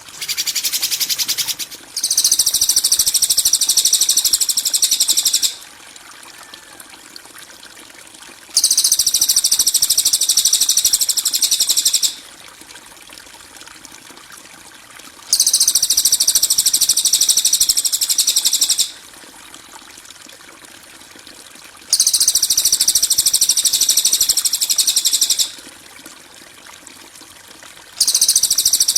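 Harsh, rapid, high-pitched bird chatter from a songbird-training (masteran) track, coming in bursts of about three and a half seconds with pauses of about three seconds, repeated in the same way five times. A faint steady hiss lies under the pauses.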